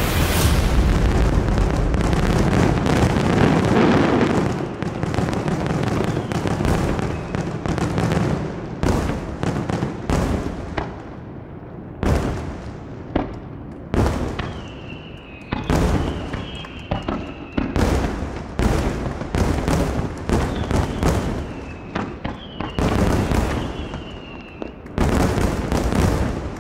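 Fireworks display: a dense barrage of overlapping bangs for the first few seconds, then separate sharp shell bursts, two or three a second at irregular spacing. A wavering high whistle sounds twice, once in the middle and again near the end.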